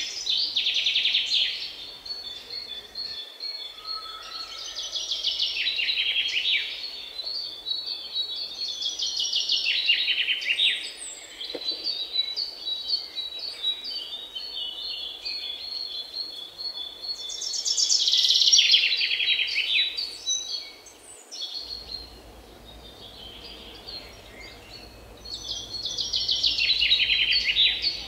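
Birds chirping in rapid trilled bursts of a second or two, coming every several seconds, with a thin steady high whistle running between them.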